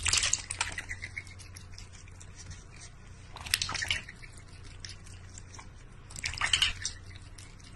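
A cat splashing water with its paw in a large stainless steel bowl, with dripping. The splashing comes in three bouts: at the start, about three and a half seconds in, and about six seconds in.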